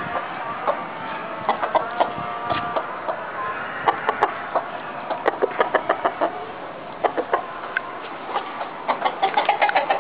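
Chickens clucking, many short clucks coming in quick runs.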